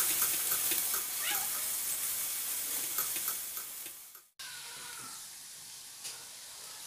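Sliced onions sizzling as they fry in hot oil in a steel pot, stirred with a wooden spoon. The sizzle cuts off abruptly a little after four seconds in, then comes back quieter.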